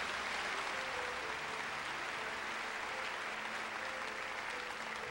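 Audience applauding steadily, with faint music underneath.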